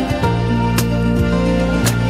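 Instrumental background music: long held notes with two light percussive hits about a second apart.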